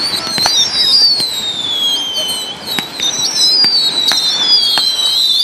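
Fireworks going off: several overlapping whistles that glide up and down in pitch, over a scatter of sharp pops and crackles.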